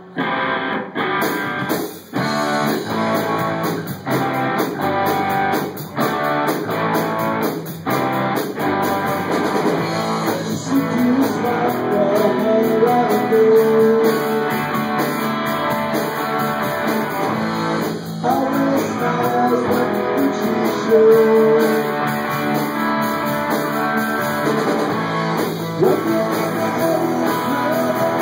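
A live band plays a guitar-led instrumental opening. For about the first eight seconds the band stops briefly about every two seconds, then plays straight on.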